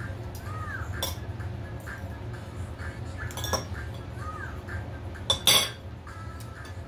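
Cutlery clinking against ceramic plates and bowls while eating: a few sharp clinks, the loudest a quick double clatter about five and a half seconds in.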